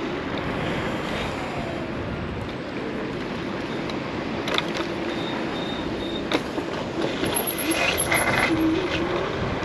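Steady wind and road noise of a 60 V Nami Klima electric scooter being ridden at speed, with a faint whine underneath and a couple of sharp clicks.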